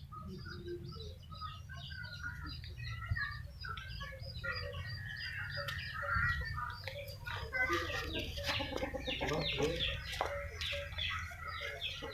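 Bird calls: many short clucks and chirps that grow denser from about four seconds in, over a low steady hum.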